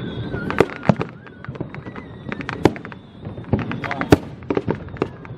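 Fireworks display: an irregular run of sharp bangs and crackles over a low rumble, with a few louder booms about half a second in, near one second, around two and a half seconds and about four seconds in.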